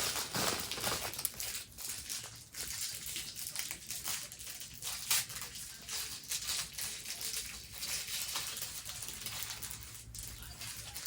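Plastic bag crinkling and rustling in irregular bursts as small fidget toys are rummaged through and handled.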